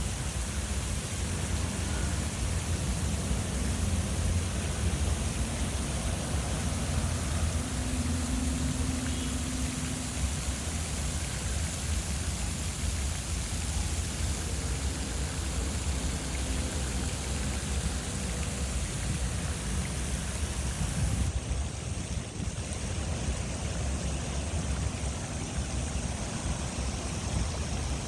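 Fountain water rushing and splashing in a steady wash of noise. The sound changes abruptly about three-quarters of the way through.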